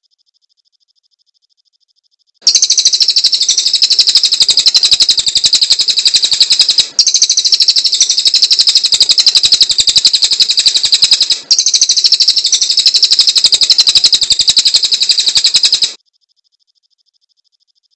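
A cililin songbird singing a rapid, high-pitched chattering song of densely repeated chirps. It starts abruptly a couple of seconds in, breaks off briefly twice, and stops sharply near the end.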